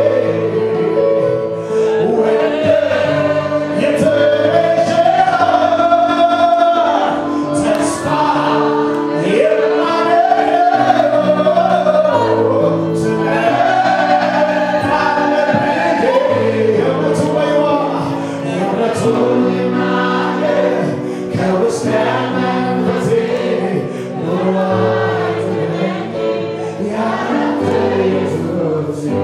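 Amharic gospel worship song: a male lead singer with the congregation singing along, over sustained electronic keyboard chords.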